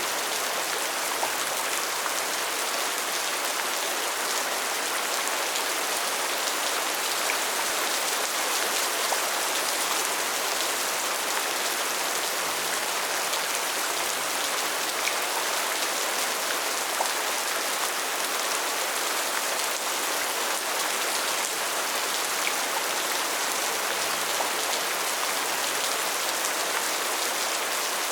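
Steady rain falling: an even hiss of rain with scattered individual drops ticking through it.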